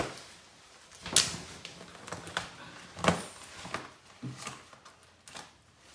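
Scissors snipping through the vinyl wall of an inflatable kiddie pool: a few sharp, scattered snips and clicks, the loudest about a second in and about three seconds in.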